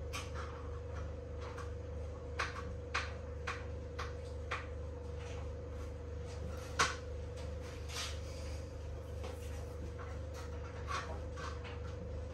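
Light knocks and clicks of food preparation on a kitchen worktop, a scattering of them with the sharpest just past the middle, over a steady electrical hum.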